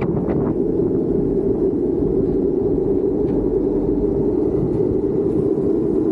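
Street luge wheels rolling fast on asphalt: a steady, loud low roar, with a few sharp clicks right at the start.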